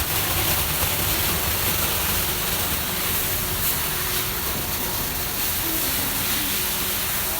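Steady machinery noise with a constant hiss and low hum, typical of sorting machines and their fans and air supply running on a factory floor.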